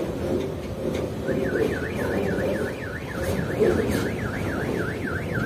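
A fast warbling electronic alarm, its pitch sweeping up and down about three times a second, comes in about a second in. Beneath it runs the rumble of a freight train on the rails, with occasional clicks.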